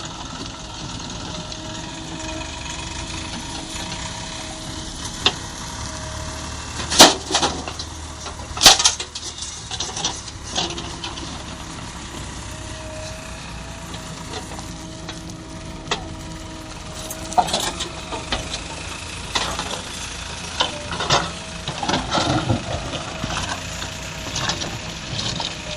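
JCB 3DX backhoe loader working: a steady machine noise with a faint whine, broken by sharp knocks and clanks again and again, the loudest two about seven and nine seconds in.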